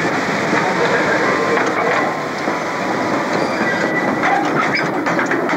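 Miniature ride-on railway train running along its narrow-gauge track, a steady noisy rush with a few faint clicks near the end.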